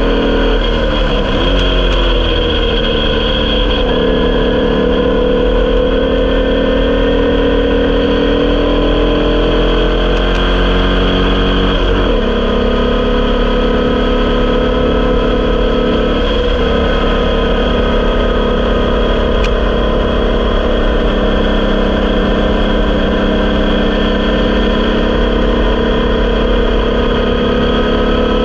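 Air-cooled 1200cc VW flat-four of a Formula Vee race car running hard at racing speed, heard onboard over wind and road noise. The engine note climbs steadily as it pulls, and the revs drop sharply at gear changes about a second in, around twelve seconds and around sixteen seconds.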